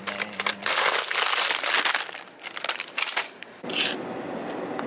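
Plastic bag of frozen edamame crinkling and crackling loudly as it is grabbed and handled, in irregular bursts for about three seconds. A shorter plastic rustle follows about a second later.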